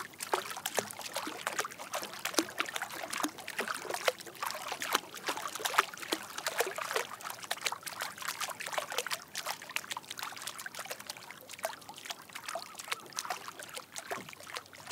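River water splashing and trickling in many quick small drips and laps, busiest in the first half and thinning out later.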